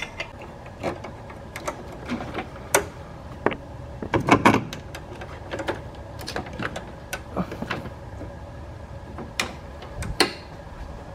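Irregular metallic clicks and knocks of a hand wrench and loosened parts as a brake master cylinder is unbolted from the brake booster, with a louder cluster of knocks about four seconds in.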